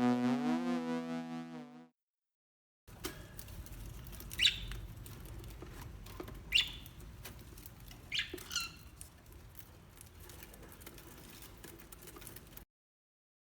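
Electronic music fades out, then a small pet bird gives three short, high, falling chirps about two seconds apart, the last one doubled, over faint room noise.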